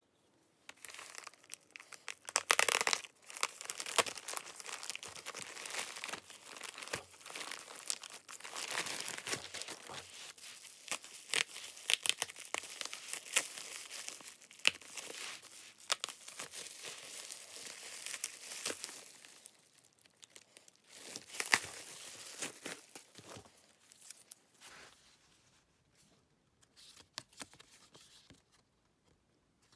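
Plastic packaging being torn and unwrapped by hand: the poly mailer and bubble wrap crinkle and crackle in a dense run of rustles, with a loud burst of tearing about two and a half seconds in. After about twenty seconds the noise thins to scattered light clicks and soft rustles as the cards inside are handled.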